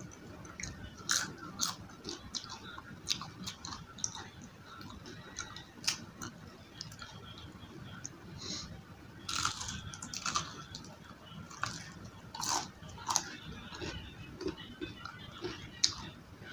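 Crisp battered fried food being bitten and chewed close to the microphone: irregular crunches and clicks, with a denser run of louder crunches from about nine to thirteen seconds in.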